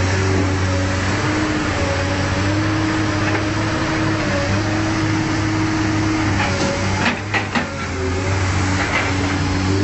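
Heavy diesel engine and hydraulics of a Komatsu PC200 excavator running steadily as it lifts logs onto a dumper truck: a low hum with a steady whine above it that wavers slightly. There are a few short knocks about seven seconds in.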